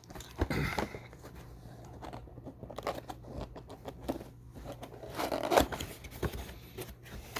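Cardboard box and its packaging being opened by hand: irregular rustling, scraping and crinkling with small knocks, loudest about five seconds in.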